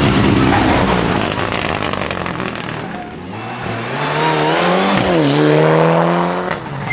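Rally cars at full throttle on a tarmac stage. Engine and tyre noise from a car passing close, then an engine revving up in rising pitch. The pitch drops once, about five seconds in, at a gear change, climbs again, and cuts off suddenly near the end.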